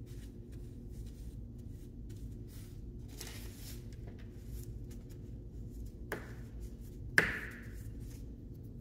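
Paper towel rustling as a paintbrush is wiped and dabbed on it, then two sharp taps about a second apart, the second the louder, over a steady low room hum.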